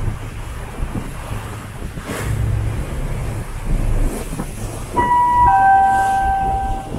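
Ferry's engine rumbling low under wind buffeting the microphone. About five seconds in, a steady two-note tone sounds: a short higher note, then a longer lower note that holds for about a second and a half.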